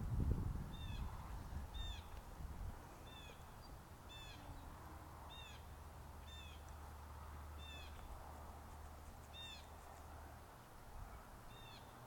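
Llamas giving their alarm call at an intruding dog: short, high-pitched calls that fall in pitch, repeated about once a second. Wind rumble on the microphone underneath.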